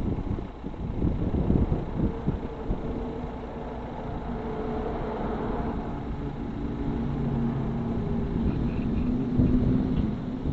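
Engine of the Asa Coast Railway dual-mode vehicle, a minibus that runs on both rail and road, running steadily at standstill during its rail-to-road mode change. A few faint short beeps come near the end.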